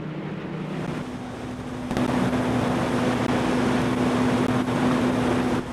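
A motor running steadily with a low hum and rushing wind noise at sea, stepping higher about a second in and louder about two seconds in.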